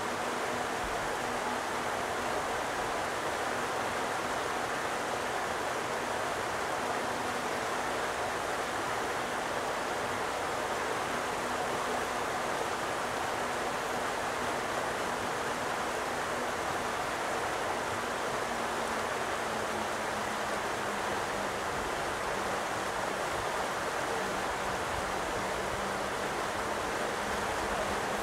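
Small rocky mountain stream rushing and splashing over stones, a steady, even rush of water.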